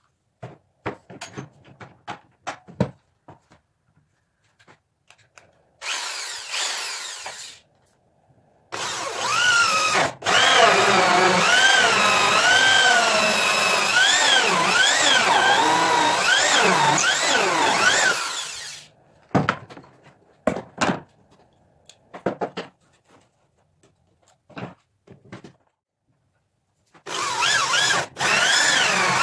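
Handheld power tool motor on wood, run in bursts: a short run, then a long run of about ten seconds whose pitch wavers up and down as the load changes, and a new start near the end. Between the runs come light knocks and clicks of wooden pieces being handled.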